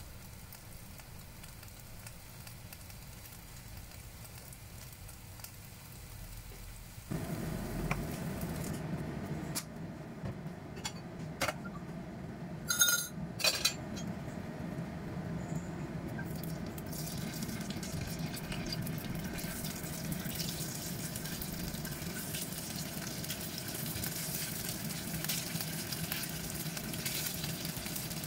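Raw pork rib chunks frying in hot oil in a nonstick pan: a steady hiss of the oil, a few sharp clinks and taps around the middle as pieces go in, then sizzling that grows brighter over the second half.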